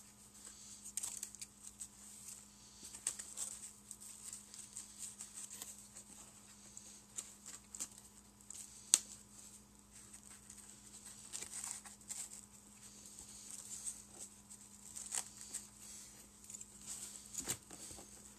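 Small 3D-printed model lifeboats being handled and worked out of their foam packing in a cardboard box: irregular light clicks, taps and rustles, with one sharper click about nine seconds in.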